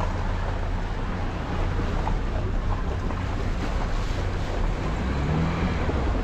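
An SUV fording a shallow river: steady engine rumble with water rushing and splashing around the wheels, and wind buffeting the microphone.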